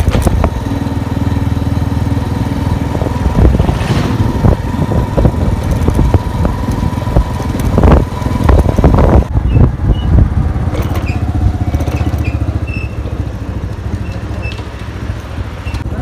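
Motorcycle engine running while the bike is ridden along a road, with wind buffeting the microphone. About halfway through the wind noise falls away and the engine keeps running steadily.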